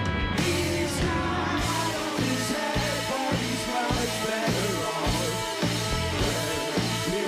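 Indie rock band playing live: electric guitars, bass, drum kit and keyboard, with singing. The full band settles into a steady beat about two seconds in.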